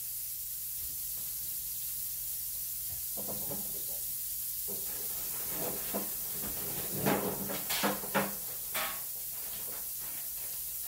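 Hamburgers sizzling steadily in a frying skillet, with a few clattering knocks about seven to nine seconds in.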